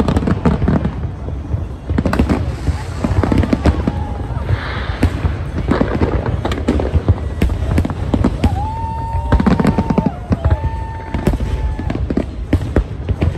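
A large aerial fireworks display going off in quick succession: many bangs and crackles over a continuous low rumble.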